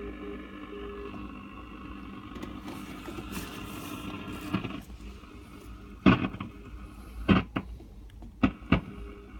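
Longwave radio hiss, with the on-off beeping of the Chiltern non-directional beacon on 277 kHz keyed in dashes during the first second. About halfway through the hiss drops away, then come about five sharp clicks or knocks, the loudest sounds here.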